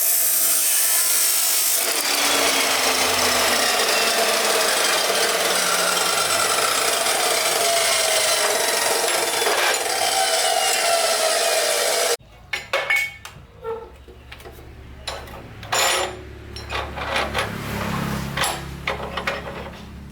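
A power tool running with a loud, even rasping noise for about twelve seconds, then cutting off suddenly; after it, scattered knocks and clatter over a low hum.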